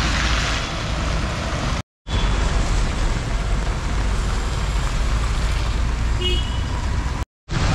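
Road traffic on a wet street: a steady hiss of tyres and engines with a low rumble, and a short distant horn toot near the end. The sound cuts out completely twice for a moment.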